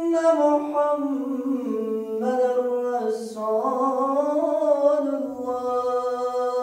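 A muezzin's single male voice chanting the adhan, the Islamic call to prayer, in long melismatic notes whose pitch glides and wavers, with one short break for breath partway through.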